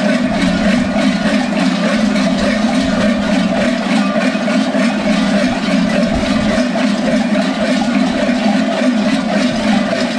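Dense, steady clanging of many large goat bells (kypria) strapped round the waists of Skyros carnival Geroi, shaken together in a continuous loud din.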